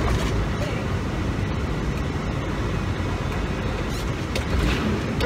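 International semi tractor's diesel engine and road noise heard from inside the cab while driving, a steady low rumble.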